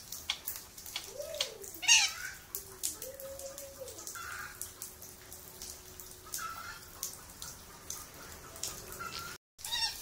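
A caged parakeet (burung bayan) gives a few short calls. The loudest, about two seconds in, is a quick falling whistle, and fainter calls follow later. Scattered drips and clicks of water sound around it.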